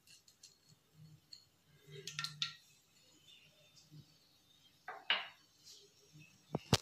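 Whole spices (cinnamon, green cardamom, cloves) being dropped into hot oil in a kadai to temper them, with light clinks of a utensil against the pan: a few about 2 s in, one about 5 s in, and a sharp clink near the end that is the loudest.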